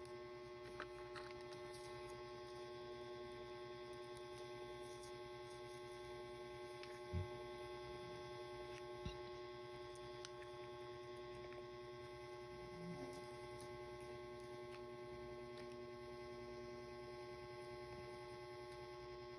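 Steady electrical hum at a low level, with a couple of faint short knocks about seven and nine seconds in.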